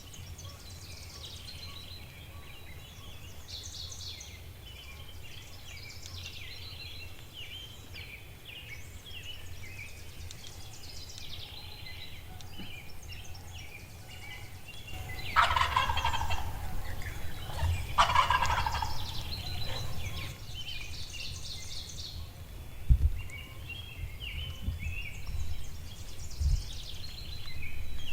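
A wild turkey gobbler gobbling loudly twice, about three seconds apart, halfway through, while songbirds sing steadily in the background. A couple of dull low thumps come later.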